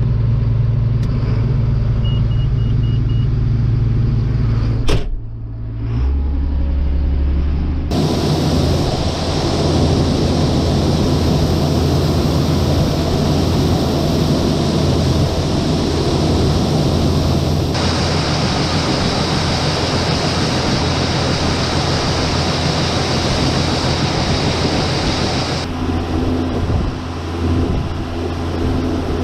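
Farm tractor engine running under steady load with a low drone, its character changing abruptly several times where clips are joined. A short row of high beeps sounds about two seconds in.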